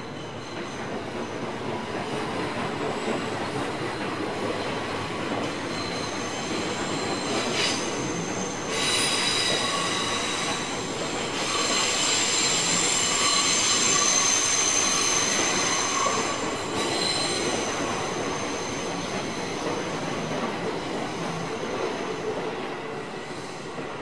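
Train passing close by, wheels squealing against the rails. The rumble builds, is loudest around the middle with several high squealing tones, then fades away near the end.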